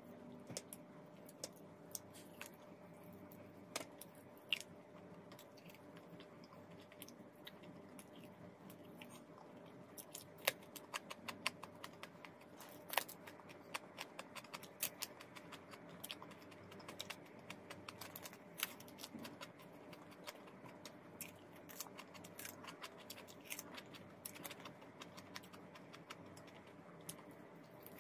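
Close-up mouth sounds of a person eating chicken wings by hand: irregular small wet clicks and smacks of chewing and lip-smacking, thickest in the middle, over a faint steady hum.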